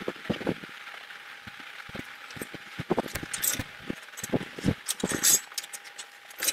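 Irregular knocks, clanks and light rattling from the basketball backboard and its steel mounting frame being lifted and carried, heaviest about three seconds in and again around five seconds. A faint steady tone runs underneath.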